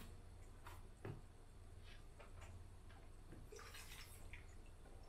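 Near silence with a few faint ticks, then a short soft spit of wine into a spittoon about four seconds in.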